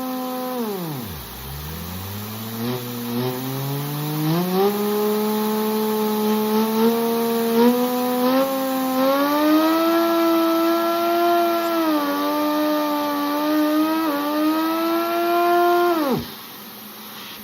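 One engine running with a clear, whining pitch. It slows sharply at first, then speeds back up in steps and holds at a steady high pitch. Near the end it winds down abruptly and stops.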